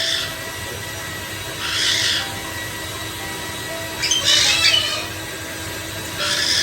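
White-bellied caique giving short, harsh squawks about every two seconds, four in all, with the third longer and broken into several parts, over a steady background noise.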